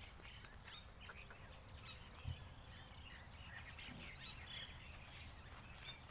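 Faint outdoor ambience with many small birds chirping in short calls, and a single low thump a little over two seconds in.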